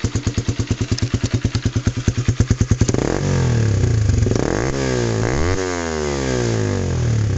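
A Honda CBR 150R's single-cylinder 150 cc four-stroke engine, heard through an NJT Racing stainless tri-oval slip-on exhaust with its DB killer baffle fitted. It idles with an even, chopping pulse, then about three seconds in it is revved a few times, the pitch rising and falling before it drops back toward idle.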